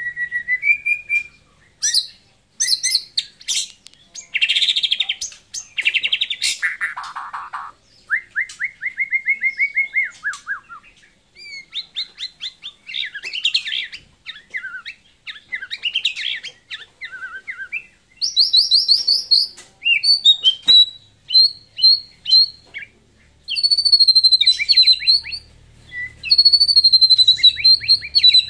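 White-rumped shama (murai batu) of the Pasaman strain in full song. It sings a long, varied run of phrases: clear whistles, fast runs of rapidly repeated notes and some harsher notes, with short pauses between phrases.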